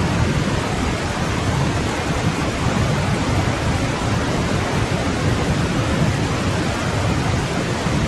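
Forest stream flowing: a steady, unbroken wash of running water with a deep rumble underneath.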